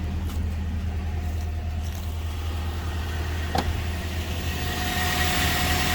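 2004 Toyota Tacoma's 2.7-litre four-cylinder engine idling and shaking badly ("muy tembloroso") with a misfire on cylinder 4. A single sharp click comes about three and a half seconds in. From about five seconds in the sound gets louder and brighter, with a hiss and a steady whine.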